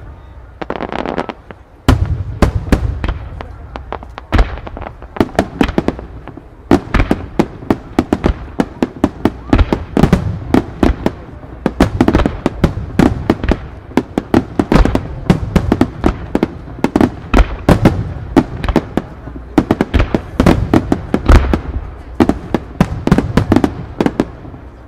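Aerial firework shells bursting in a rapid barrage, sharp bangs several a second. The barrage sets in about two seconds in and keeps up steadily after that.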